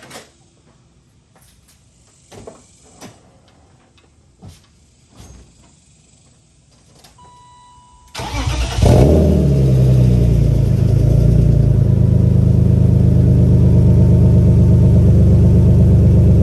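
A few small clicks and a brief electronic chime, then about eight seconds in the BMW M3's engine cranks and fires. It flares up briefly and settles into a steady, loud idle, a start-up from cold.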